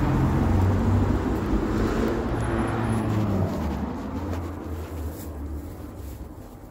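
Street traffic noise with a vehicle engine running, a steady low rumble that fades gradually over the last few seconds as the camera goes indoors.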